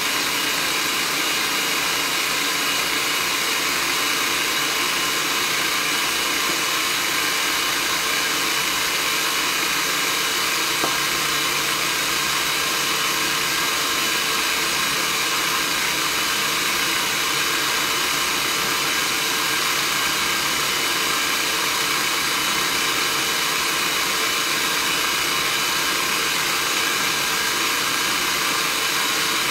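Food processor motor running steadily, blending a thick pumpkin and cauliflower purée.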